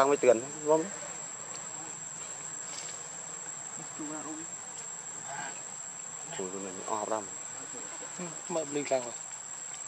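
Steady high-pitched drone of insects, one unbroken tone, with voices coming and going over it.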